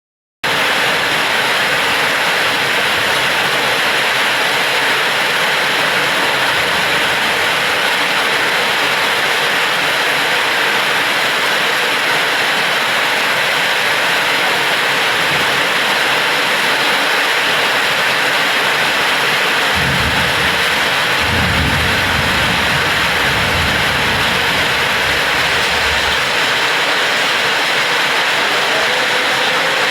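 Heavy rain falling steadily. About two-thirds of the way in, a low roll of thunder rumbles under the rain for several seconds.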